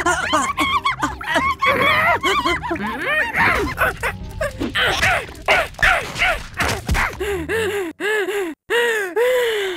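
Squeaky, high-pitched cartoon-character vocalizations from a beaver character: a quick run of short rising-and-falling yips and gibberish sounds, a few longer swooping ones near the end.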